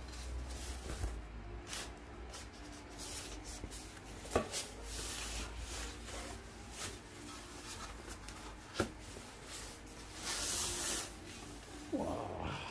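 Padded fabric wheel bag rustling and rubbing as a bicycle wheel is slid out of it, with a few sharp clicks and a louder scrape of the bag near the end.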